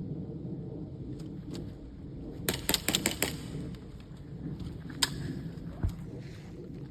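Airsoft gun firing: a quick string of about six sharp snapping shots, then a single shot about two seconds later, over a steady low rumble.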